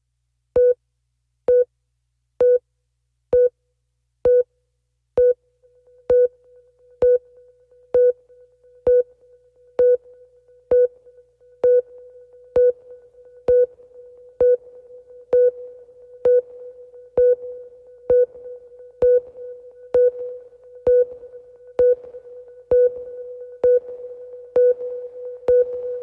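Electronic background music: a synth pulsing on one note about once a second, joined after about five seconds by a held tone on that note and a slowly building wash of sound.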